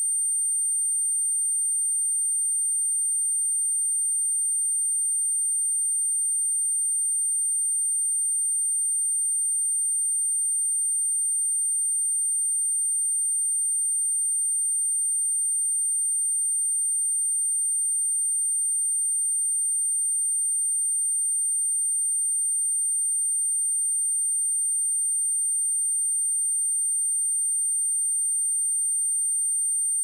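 A pure 8855 Hz sine-wave test tone, a single high-pitched steady whine at a constant level, used for speaker testing and so-called speaker cleaning.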